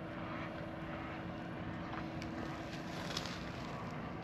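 Engine running steadily in the background, a constant low hum over an even wash of noise that fades near the end, with a couple of faint clicks about two and three seconds in.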